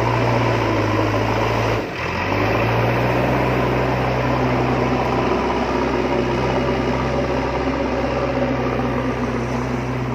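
Steady engine-like drone of the miniature vehicles' motors, a low hum with a hissing rattle over it, cutting out for a moment about two seconds in and then carrying on.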